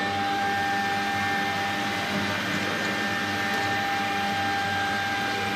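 Small 4-axis CNC engraving router's motors and drives running with a steady whine of several held tones over a light hiss.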